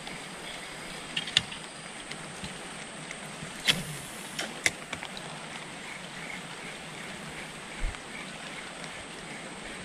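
Steady rush of water, with a few sharp clicks and knocks about a second in and around four seconds in, and a low thump near the end.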